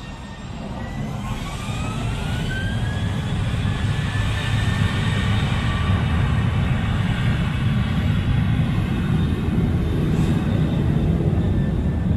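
Jet airliner's engines spooling up to takeoff thrust, a rising whine over the first few seconds, then a steady loud rumble as the plane begins its takeoff roll.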